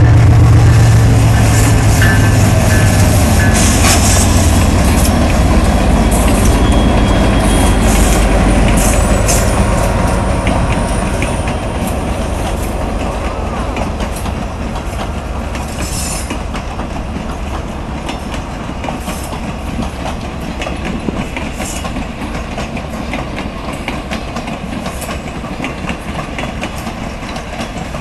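Canadian National diesel locomotive passing close by, its engine rumble loud at first and fading over the first ten seconds or so. Then the Rio Grande ski train's passenger cars roll past, with a steady rumble and wheels clicking over the rail joints.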